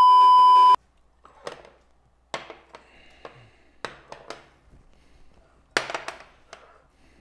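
A loud steady test-tone beep, the kind that goes with a colour-bar test card, cuts off sharply under a second in. Then a string of short clinks and knocks as small porcelain bowls are set down and shifted on a kitchen counter.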